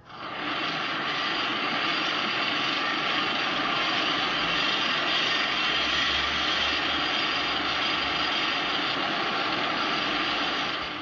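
A loud, steady rushing noise used as a sound effect. It swells up from silence at the start, holds evenly and begins to fade out at the very end.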